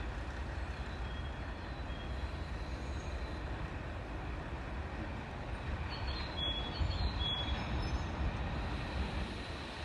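Low, steady rumble of an EH500 electric locomotive and its freight train approaching from a distance, growing slightly louder after about seven seconds. Two short high chirps sound near the middle.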